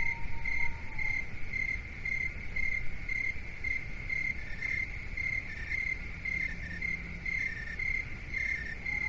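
Crickets chirping in an even rhythm of about two high chirps a second, with a second, lower-pitched chirping joining about halfway through, over a steady low rumbling noise.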